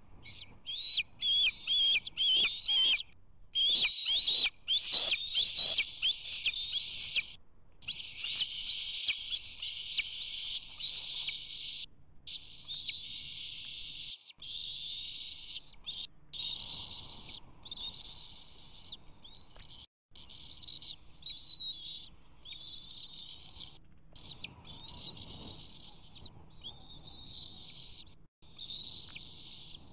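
Bald eagle eaglets giving high-pitched food-begging calls almost without pause as an adult feeds them fish at the nest. A run of loud, rapid, sharp calls fills the first seven seconds or so, then the calling goes on steadier and softer.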